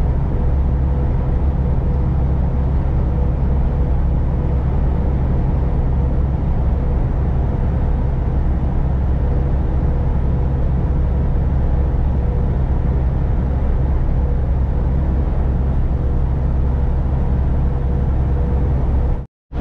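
Steady low drone of a semi truck's engine and road noise heard from inside the cab while driving, with a faint steady hum over it. The sound cuts out completely for a split second near the end.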